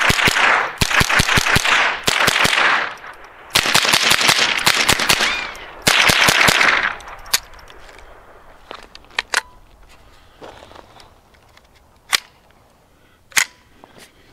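Rapid semi-automatic fire from a Ruger .22 LR rifle shooting Remington Thunderbolt rounds: four quick strings of several shots a second over the first seven seconds, each shot with a short echo. A few single sharp clicks follow later on.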